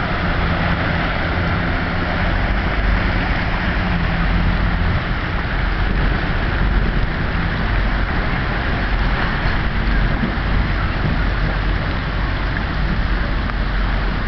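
Steady rushing noise of vehicles driving through deep street floodwater, with a low engine rumble underneath.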